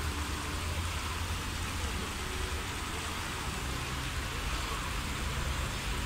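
Pond fountain spraying water, heard as a steady, even splashing hiss with a low rumble underneath.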